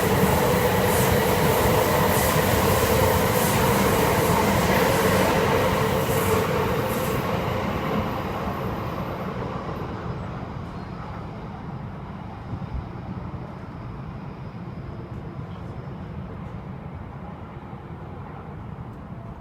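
Tohoku Shinkansen bullet train running by on the station tracks, its noise loud at first and then fading away over about six seconds as it recedes, leaving a low steady hum.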